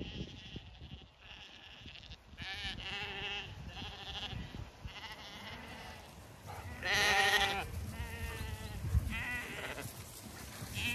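Zwartbles lambs bleating as they come to the shepherd's call: several bleats, the loudest a long one about seven seconds in.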